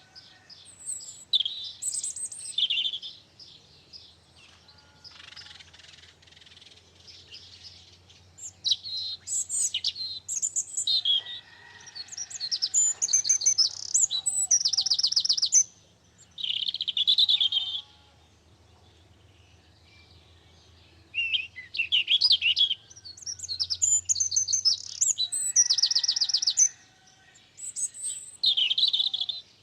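Songbird singing outdoors: repeated phrases of high warbling and fast, rattling trills, each lasting one to several seconds with short pauses between.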